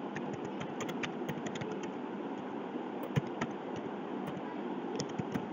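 Computer keyboard typing: irregular, light key clicks over a steady background hiss.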